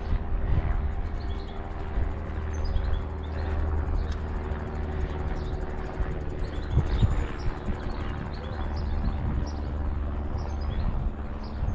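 Small birds chirping in short, repeated high calls over a steady low rumble and hum.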